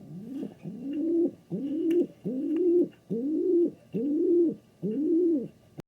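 Pigeon cooing: seven low coos in a steady run, each rising and then falling in pitch.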